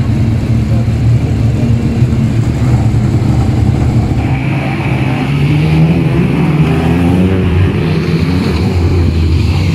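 Several Legends race cars' Yamaha motorcycle engines running together as a steady low rumble, with revs rising and falling from about halfway through as the cars are blipped and move off in a line.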